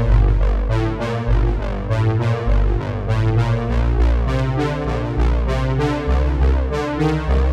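Background music: synthesizer and keyboard over a steady beat and deep bass.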